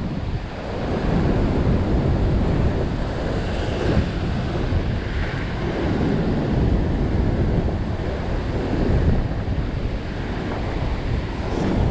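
Steady rush of white water pouring out below a concrete weir, with wind buffeting the microphone in gusts.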